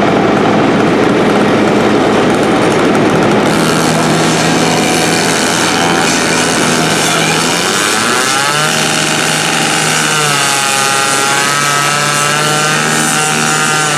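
Gas-powered rotary rescue saw running, turning sharper and brighter a few seconds in, then cutting into a car's sheet metal with its engine pitch rising and falling under load.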